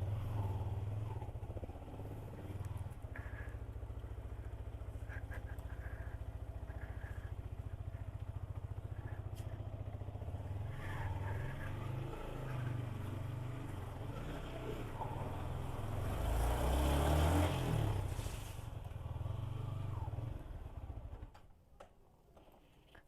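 Yamaha MT-15's single-cylinder engine idling steadily, with a short rise in revs about sixteen seconds in, then falling away to quiet near the end.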